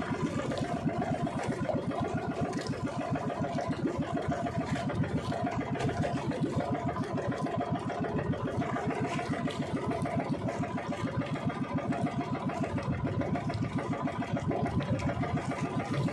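Small outrigger bangka's motor running steadily under way, an even fast low putter with a steady drone over it, and water splashing along the hull and outrigger.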